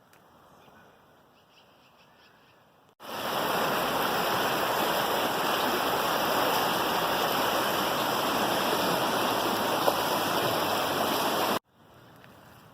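Rushing mountain stream swollen with rain and snowmelt runoff: a loud, steady rush of water that cuts in suddenly about three seconds in and cuts off just as suddenly shortly before the end.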